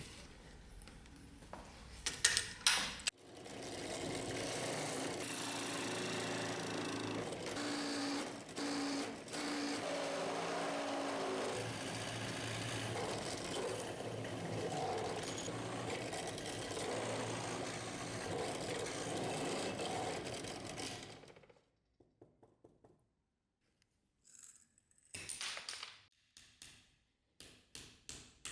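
A small electric machine runs steadily for about eighteen seconds, then stops suddenly. A few seconds of quiet follow, then a series of light taps and clicks near the end.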